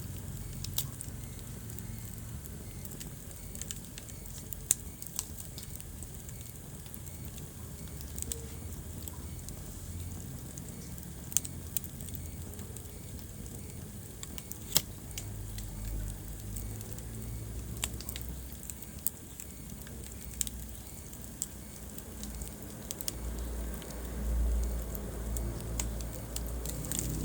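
Wood fire burning in a fireplace: a low rumble of flame with scattered crackles and sharp pops, a few of them much louder than the rest.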